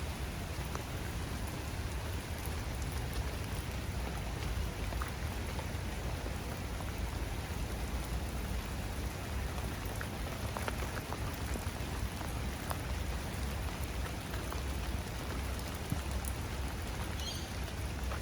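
Steady rain falling, with scattered drops ticking close by over a low rumble.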